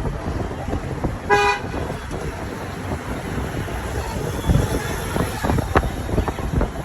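A vehicle horn toots once, briefly, about a second in, over the steady rumble of engine and road noise in traffic, with a few knocks and rattles later on.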